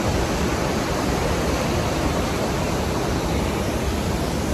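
Powerful waterfall rushing in a steady, loud roar of falling water, its current very strong.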